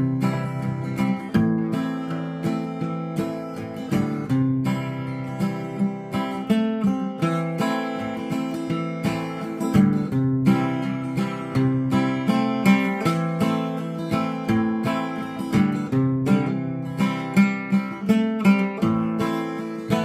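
Acoustic guitar strummed in a steady rhythm, chords ringing: the instrumental intro to a song, with no singing yet.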